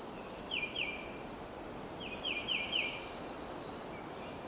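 A songbird singing short runs of quick, down-slurred whistled notes: a pair just after the start, then four in a row about two seconds in. A steady outdoor hiss lies underneath.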